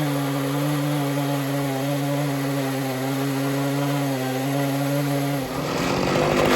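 Chainsaw on an Alaskan chainsaw mill running at a steady high pitch, held at throttle while ripping a white oak log into slabs. About five and a half seconds in, the even note gives way to a louder, rougher noise.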